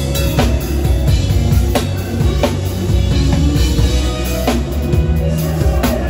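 Live gospel band music dominated by a close-miked drum kit playing a steady groove, with a sharp strike about once a second over heavy low bass and sustained instrument tones.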